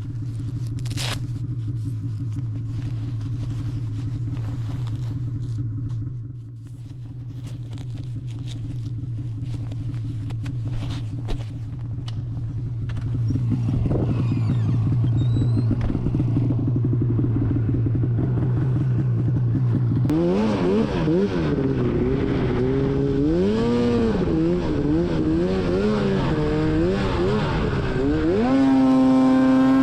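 Snowmobile engine running steadily at a low pitch. From about twenty seconds in it revs up and down over and over as the sled is ridden, then holds at a high steady pitch near the end.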